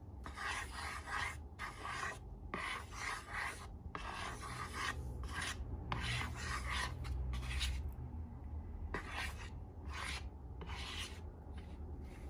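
Rasping, scraping strokes in short repeated groups of about half a second to a second, growing sparser after the middle.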